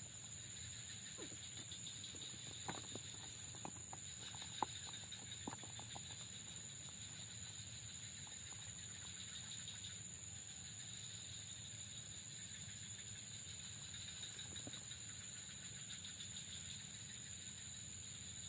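Steady high-pitched drone of an insect chorus over a faint low rumble, with a few sharp clicks about three to five seconds in.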